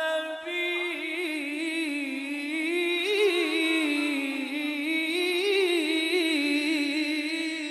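A male Quran reciter's voice holding one long, melodic line of tajwid recitation, its pitch winding up and down in wavering ornamented turns without a break, drawn out near the end.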